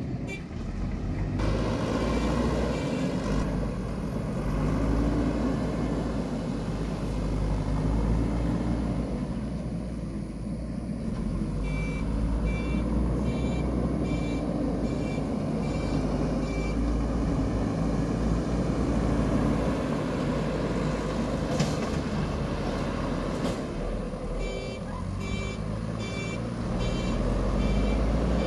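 JCB 3DX Super backhoe loader's diesel engine running steadily while it levels earth. Its reversing alarm beeps about twice a second in several spells: near the start, in the middle and near the end.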